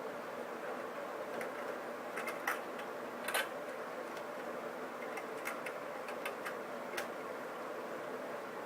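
Scattered sharp clicks and ticks, irregular and a few louder than the rest, as a thin cutting string is worked through the adhesive between an iPhone 5's LCD and its cracked front glass, over a steady low hum.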